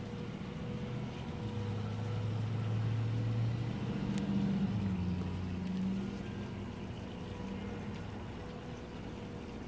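Low mechanical hum, like a motor, that grows louder from about a second and a half in and fades after about six seconds, over a steady background drone.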